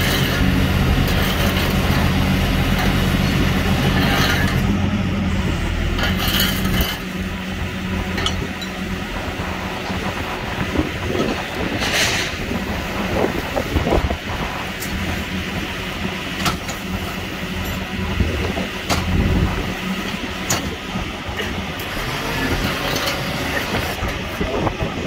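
A heavy vehicle's engine idling with a steady low hum, which stops about seven seconds in; after that, outdoor roadside noise with scattered knocks and clanks.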